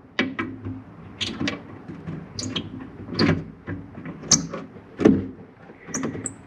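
A metal spanner scraping and clinking on a nut as it is worked in short, irregular strokes, with a few brief high squeaks near the end.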